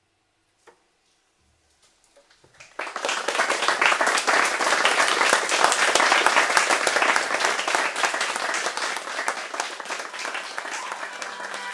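Near silence, then an audience breaks into applause a little under three seconds in: dense clapping that eases slightly toward the end.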